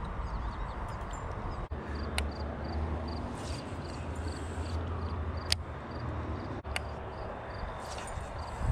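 Fishing reel being cranked to retrieve a spinnerbait: a light, regular ticking about three times a second, with a few sharp clicks, over a steady low rumble.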